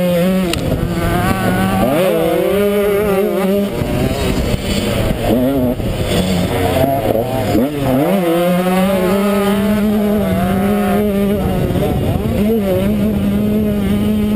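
Motocross bike engine heard from the rider's helmet camera, revving at race pace: its pitch climbs through the revs and then holds, over and over, as the rider goes through the gears. Wind rushes on the microphone throughout.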